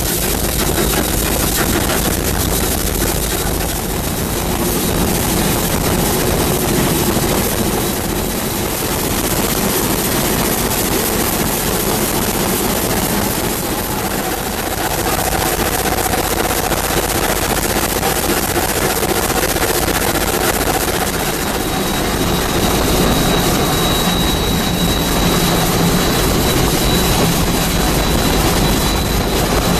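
Cab noise of a narrow-gauge steam locomotive under way: the steady mechanical clatter and rush of the running engine and wheels. A thin, high steady tone grows louder over the last several seconds.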